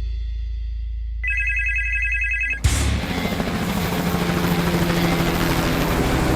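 Cartoon sound effects: a low steady hum, then, about a second in, a pulsing electronic ringing tone that lasts about a second and a half. It cuts to a loud, steady rushing noise over a low drone.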